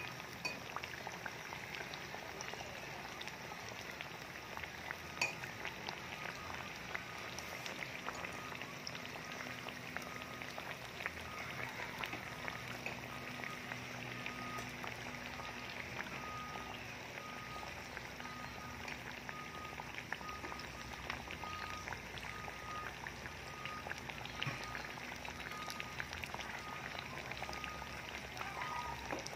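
Banana pieces coated in batter deep-frying in hot oil: a steady sizzle with many small pops and crackles.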